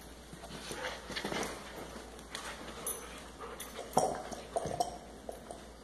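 Dogs playing over a plush toy: scuffling and mouthing, with a few short, high-pitched dog whimpers about four to five seconds in.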